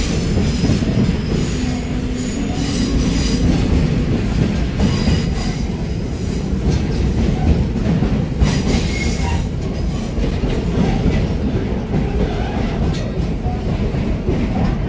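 Open-sided passenger car of a scenic railroad rolling along: a loud, steady rumble of wheels on the rails, with short high wheel squeals now and then.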